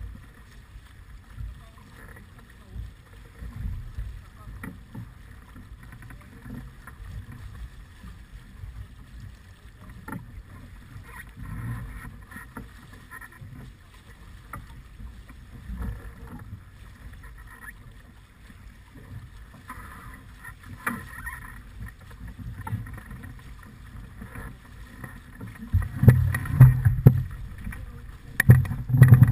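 Wind buffeting the microphone and water rushing and splashing along the hull of a sailing yacht under way, with stronger gusts near the end.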